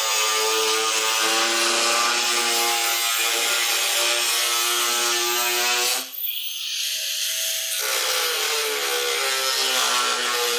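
Angle grinder with an abrasive cut-off wheel cutting metal: a steady hiss of grinding with the motor's whine under it. About six seconds in the wheel comes off the work and its pitch rises as it spins free, and near eight seconds it bites again for the next pass.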